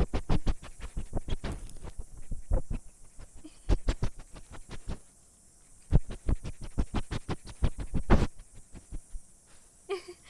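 A silver fox mouthing and sniffing a tiny handheld microphone right up against it, giving a close, fast run of clicks and knocks. The run pauses briefly about five seconds in, then resumes.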